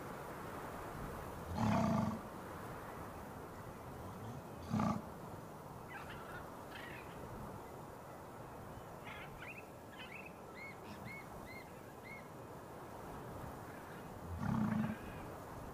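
A few loud, harsh animal calls: one about two seconds in, a shorter one near five seconds and another near the end. Between them, small birds chirp, including a run of four short repeated notes, over a steady background hiss.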